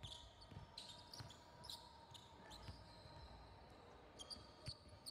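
Faint basketball dribbling on a hardwood gym floor: irregular bounces of the ball, with a few short high squeaks.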